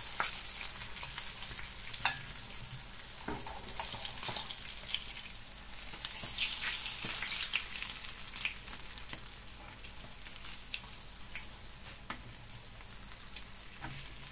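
Breaded Baltic herring sizzling steadily in hot oil in a frying pan. The sizzle is louder about six to eight seconds in and then eases. A few sharp clicks come from metal tongs knocking the pan and plate as the fried fish are lifted out.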